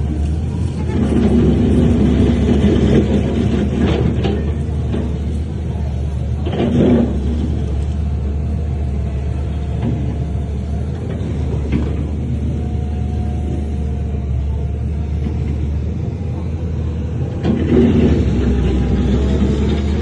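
Heavy earthmoving machinery's diesel engine running with a steady low rumble, swelling under load about a second in and again near the end, with a few sharp knocks in between.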